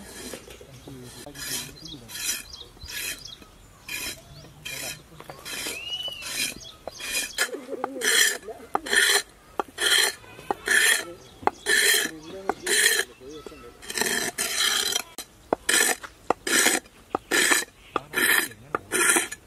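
A blade being sharpened on a wet stone: repeated rasping scrapes, slower at first, then about two strokes a second.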